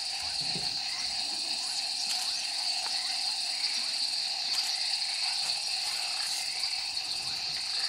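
Steady night chorus of insects: a continuous high buzzing trill, with a lower steady tone beneath it.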